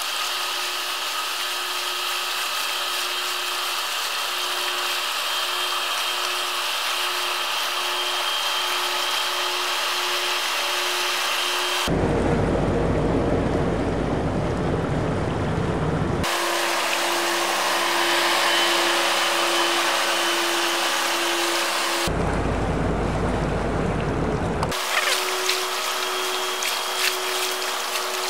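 Diesel engines of passing Rhine cargo barges droning steadily with a pulsing hum, over the rush of water from their wash. The sound changes abruptly several times as the footage cuts between ships, twice to a deep rumble.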